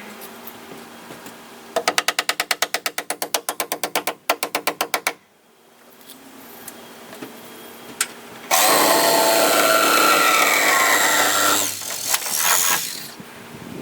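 A rapid run of sharp strokes, about eight a second, lasting about three seconds with a brief break. After a pause, a power tool runs loud and steady for about three seconds, and its pitch falls as it winds down.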